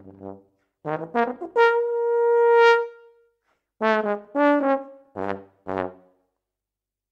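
Solo euphonium playing the closing phrase of a piece: a few short notes, then one long note that swells louder and stops, then several more notes ending on two short low ones.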